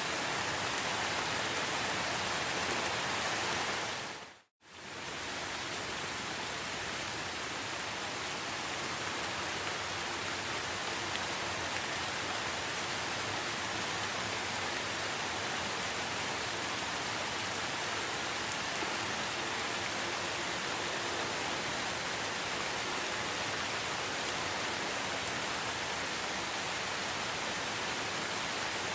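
Steady, even rainfall in a rainforest ambience recording. About four seconds in it fades briefly to silence and straight back in.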